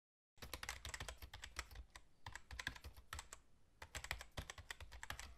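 Faint computer-keyboard typing sound effect: quick, irregular keystrokes in runs, with two short pauses.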